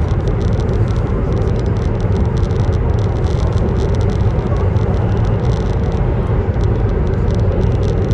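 Steady low rumble of a CR400BF Fuxing high-speed electric multiple unit running on the line, heard from inside the passenger cabin.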